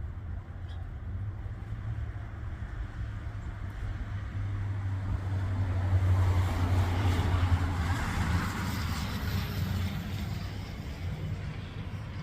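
A motor vehicle going past: a steady low engine hum with tyre hiss that builds to its loudest about halfway through and then fades.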